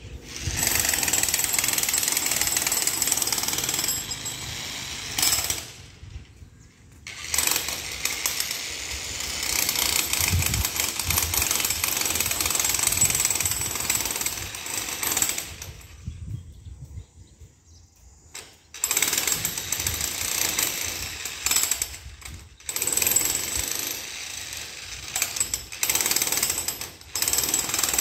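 Cicadas buzzing loudly in long stretches of several seconds, each switching on and off abruptly.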